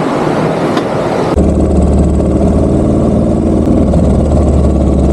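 A rushing noise, then about a second and a half in an abrupt change to a Royal Enfield Bullet 350's single-cylinder engine idling steadily with a low, even beat.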